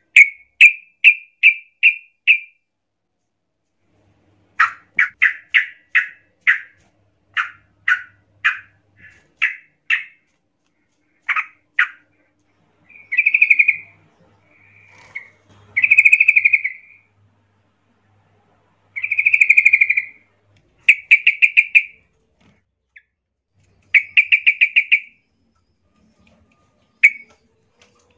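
Yellow-vented bulbuls (trucukan) calling agitatedly, in the worked-up song that bird-keepers use to provoke a rival. The calls start as quick runs of sharp, separate chirps, then turn to rattling, buzzy chatters about a second long, with short pauses between them.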